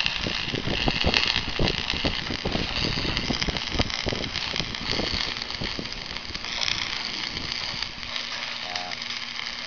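Construction site noise: irregular knocks and crackles over a steady hiss.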